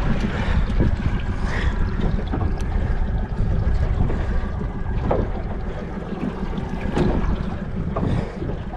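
Wind buffeting the microphone and water against a small fishing boat's hull make a steady low rumble, with a few brief clicks and creaks.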